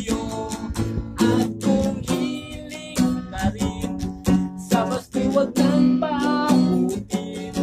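Acoustic guitar strummed in a steady rhythm, playing chords through an instrumental break between sung lines.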